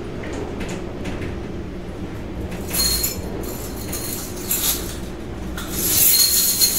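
Large traction elevator car travelling between floors, heard from inside the car: a steady low hum from its DC-driven hoist, with three short hissing rattles about three, four and a half and six seconds in.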